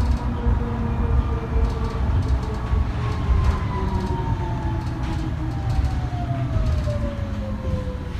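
Inside a 2018 New Flyer XT60 articulated trolleybus with Vossloh Kiepe electric drive: the traction motor's whine, steady at first, falls steadily in pitch from about three seconds in as the bus slows, over the low rumble of the ride.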